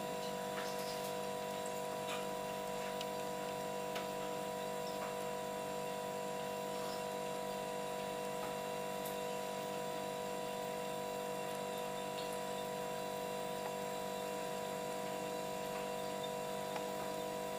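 A steady machine hum made of several held tones over a faint hiss, with a few faint scattered ticks.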